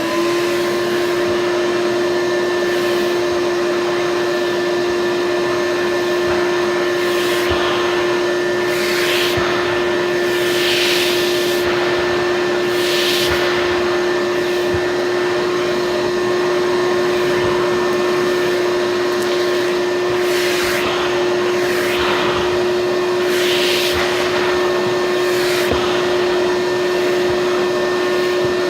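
5-gallon Shop-Vac wet/dry vacuum running steadily at full speed, a constant motor whine under a rushing-air hiss. The hiss swells now and then as the nozzle is worked over a rug.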